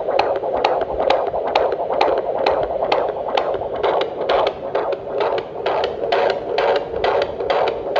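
A baby's heartbeat in the womb, picked up by a Huntleigh Sonicaid handheld fetal Doppler and played through its speaker: a fast, regular pulse, a little over two beats a second.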